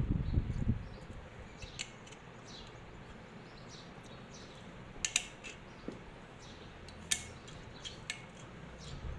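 Magnets being set onto a ceiling fan's metal plate: low handling rumble in the first second, then a few sharp metallic clicks, the loudest about five and seven seconds in.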